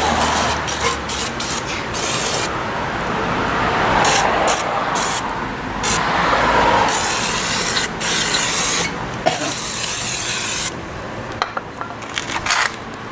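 Liquid being sprayed into an engine oil pan in long hissing spurts with short breaks, flushing out copper fragments of a destroyed main bearing. A few sharp knocks come near the end.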